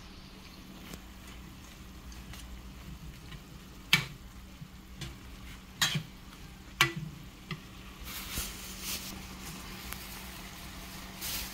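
Food being tossed in a stainless steel bowl, with sharp metallic clinks against the bowl about 4, 6 and 7 seconds in. From about 8 seconds, green chili peppers and dried anchovies sizzle in a frying pan as they are stirred with a wooden spatula.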